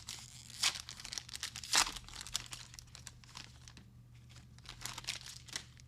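A trading card pack's wrapper crinkling and tearing as it is ripped open, with two sharp rips at about two-thirds of a second and nearly two seconds in, then softer rustling.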